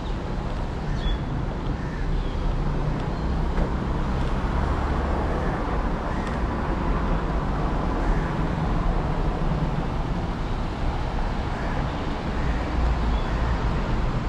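Steady road traffic noise: a continuous low rumble of passing cars.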